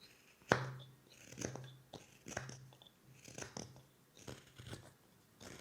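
Carving knife shaving wood while whittling a comfort bird: short crunchy cuts coming about once a second.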